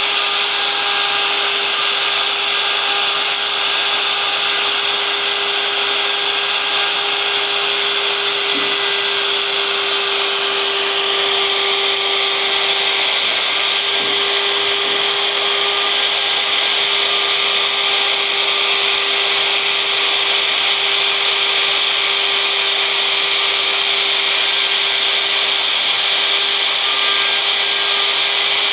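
Electric wood router running steadily with a constant high whine over a hiss, cutting a carved pattern into wood.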